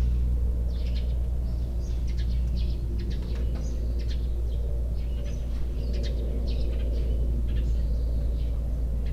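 Sparrows chirping off and on, many short high chirps in quick runs, over a steady low rumble that is louder than the birds.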